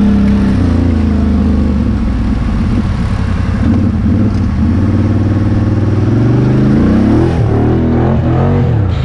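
ATV engine running while riding on a dirt trail. Near the end its pitch rises and then swings up and down several times as the throttle is worked.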